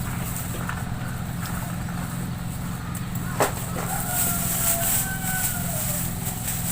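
A steady low mechanical hum, like an engine running, with a single sharp click about three and a half seconds in.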